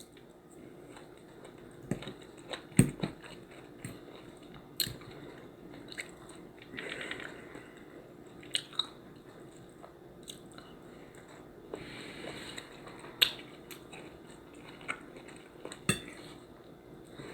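A person eating: quiet chewing and mouth sounds, with a dozen or so short, sharp clicks and taps scattered through.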